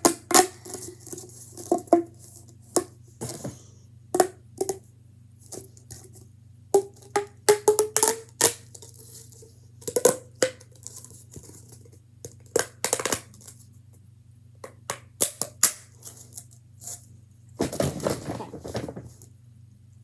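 Green plastic pop tube fidget toy being pulled out and pushed back, its ribbed segments snapping open and shut in irregular sharp clicks and pops. A longer rustle comes near the end.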